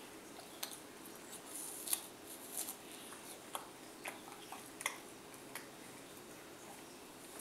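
A toddler gnawing at a whole unpeeled apple: faint, scattered crisp crunches and scrapes as small bites break into the skin, thickest in the first half and dying away after about five and a half seconds, over a faint steady hum.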